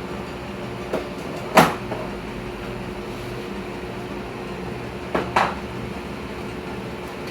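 A few short knocks of parts or tools being handled: two about a second and a half in, the second the loudest, and a close pair a little after five seconds. A steady fan-like hum runs underneath.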